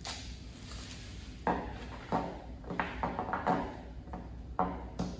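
Small hard plastic drone accessories clacking as they are handled and set down on a table: a short rustle of plastic wrap at the start, then about six sharp knocks over the last few seconds.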